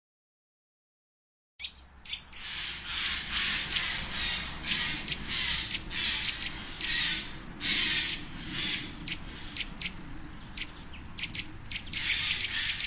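Complete silence for about the first second and a half, then songbirds start up abruptly with dense, rapid, high-pitched chirping and short harsh calls that go on without a break.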